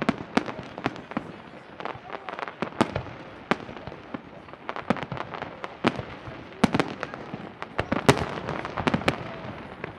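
Fireworks show: aerial shells bursting in many sharp bangs at an irregular pace, several a second, with a steady noise between them.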